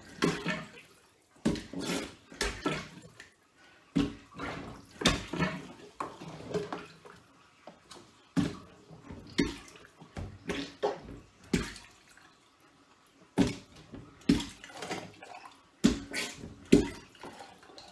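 Plunger worked in a blocked kitchen sink: a run of irregular wet slaps and splashes of water, some in quick pairs, with short pauses between. The sink's drain is partly blocked and the water dribbles away without going down.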